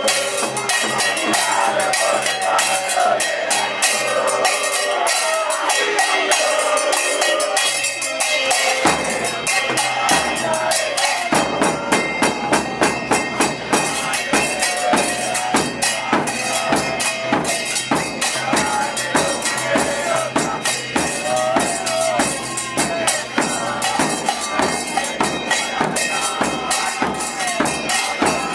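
A crowd of football supporters singing a chant. About nine seconds in, a steady, fast beat of drums and other percussion joins the singing.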